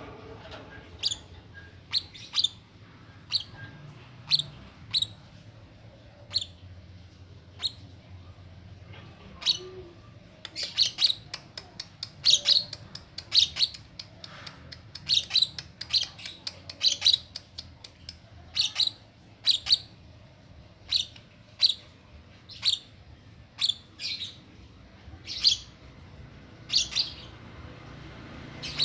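Young lovebird, about two months old, chirping: short, sharp, high calls given one at a time or in quick runs, with uneven gaps between them.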